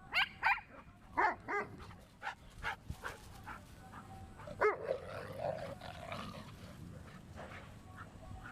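A dog barking: a run of short, high-pitched barks over the first five seconds, the last of them about halfway through, then quieter background.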